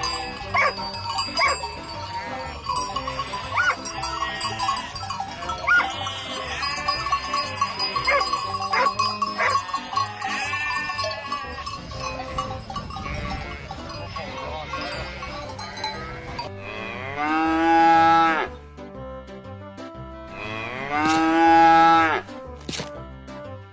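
Cattle mooing, with bells clanking and ringing through the first part. Two long, loud moos come near the end.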